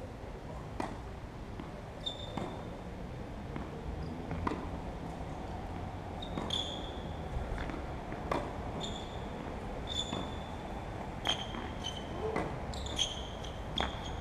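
Tennis rally: sharp knocks of racket strikes and ball bounces coming about every one and a half to two seconds, with repeated short high-pitched chirps that grow more frequent in the second half.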